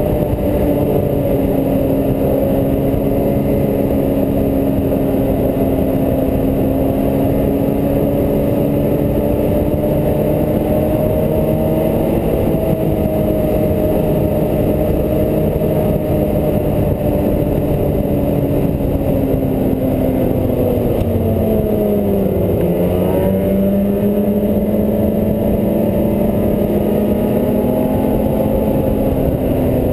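Snowmobile engine running steadily at trail speed, heard from the rider's helmet camera, with a rushing noise underneath. About twenty-two seconds in, the engine note drops for a couple of seconds, then climbs back up.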